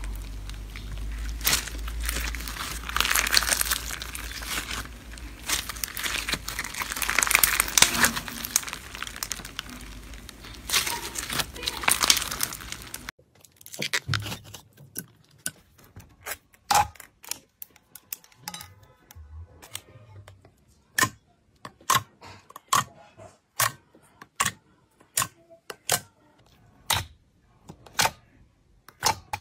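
Hands squeezing and stretching pink foam-bead slime, a dense crackling and crunching. A little before halfway it changes to clear jelly-like slime being pressed and poked, which gives sharp separate clicks and pops, more than one a second.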